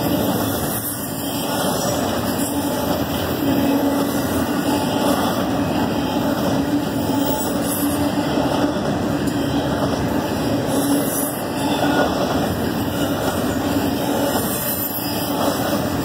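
Double-stack intermodal container cars rolling past on the track: a steady rolling noise of steel wheels on rail.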